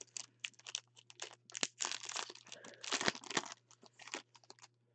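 Foil trading-card pack wrapper crinkling and tearing in irregular bursts as gloved hands rip it open and slide the cards out.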